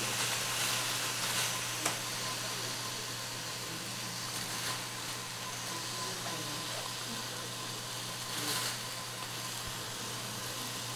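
Tofu slabs sizzling steadily in olive oil in an electric skillet.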